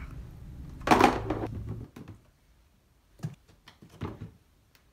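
Bundles of yarn being handled and dropped into a cardboard box: a rustling thump about a second in, then a few soft knocks as the plastic storage bins are handled.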